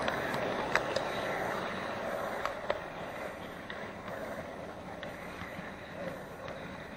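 HO-scale model train running along the track, heard from a camera riding on it: a steady rolling rumble with occasional sharp clicks as the wheels cross rail joints.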